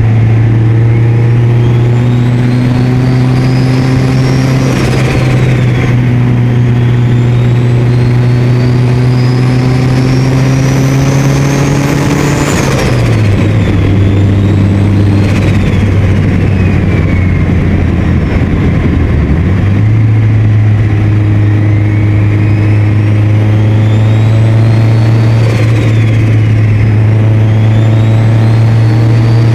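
Mitsubishi Lancer Evolution VIII's turbocharged 4G63 inline-four under boost, with a strong engine drone and a turbo whistle that climbs in pitch over several seconds and then drops away suddenly, about four times. Each drop comes with a short rush of sound as the throttle is lifted: the compressor-surge flutter of a blow-off-valve-deleted turbo.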